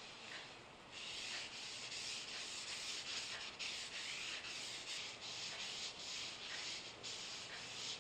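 Rubbing on a wooden surface, a steady scratchy hiss that grows stronger about a second in, with brief breaks between strokes.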